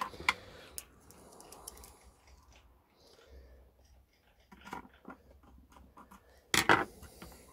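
Scattered clicks, taps and scrapes of a screwdriver and cable being worked into the screw terminals of a small solar charge controller. A sharp click comes at the start and a louder clatter about six and a half seconds in.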